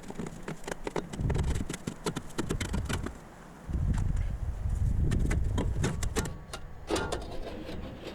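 Metal tools and parts clinking and knocking, with two stretches of low rumbling handling noise.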